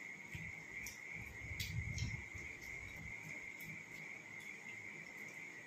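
Crickets trilling steadily at one high pitch, with scattered soft clicks and scrapes of fingers mixing rice on steel plates.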